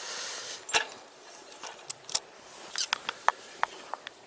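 Handling noises from a freshly caught grayling and fishing tackle: a short rustle, then a scatter of sharp clicks and taps.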